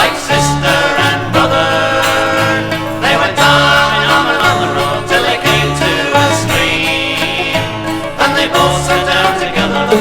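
Music: an instrumental break in a folk ballad, with plucked string instruments picking the tune over a steady bass line.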